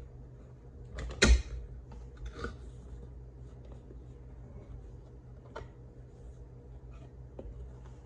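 Cardboard reel packaging being handled and opened: a loud knock about a second in, a softer knock a second later, then light taps and rustles of cardboard.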